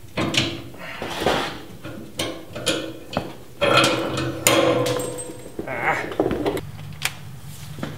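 Irregular knocks, clanks and scrapes of a large fuel tank being pushed and shifted up into its hangers beneath a Jeep, with a brief ringing tone near the middle.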